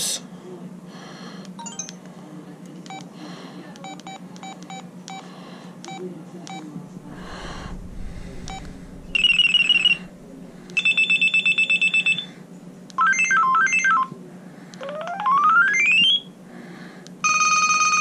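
LG VX6100 flip phone beeping briefly as its keys are pressed, then playing short previews of its built-in ringtones one after another through its small speaker: five brief electronic melodies, one of them a rising sweep, as the ringtone list is scrolled.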